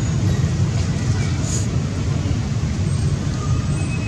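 A steady low rumbling noise, with a few faint short high peeps over it.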